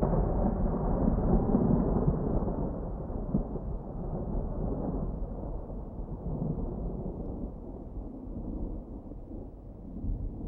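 Rolling thunder: a low rumble that fades slowly over about ten seconds.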